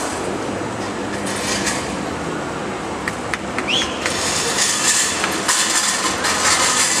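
Loud street din during a riot: steady rushing noise with repeated bursts of high hiss, a few sharp clicks, and a short rising high squeal about halfway through.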